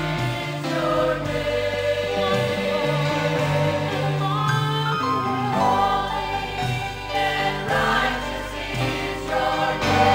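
Gospel church choir singing in full voice, many voices holding sustained notes, with a live band of drums and electric guitar behind them.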